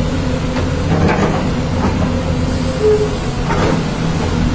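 Diesel engines of two Doosan crawler excavators running steadily under hydraulic load as the booms and buckets move, with a few short, sharper sounds from the working arms.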